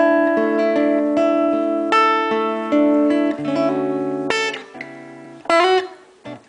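Acoustic guitar playing the song's opening chords, each chord left to ring before the next. Two sharper struck chords come in the second half, then the playing thins to a short quiet gap near the end.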